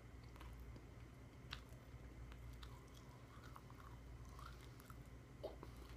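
Faint chewing of a stick of decades-old trading-card bubble gum, with scattered small mouth clicks over a low room hum.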